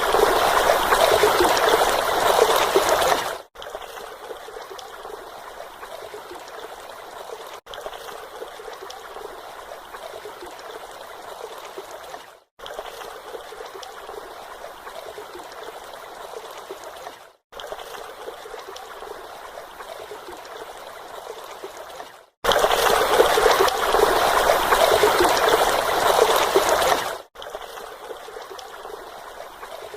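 Water of a small stream and mini waterfall running steadily, heard in a run of short clips joined by brief silent cuts. The rush is much louder and fuller at the start and again from about 23 to 27 seconds, and a softer trickle in between.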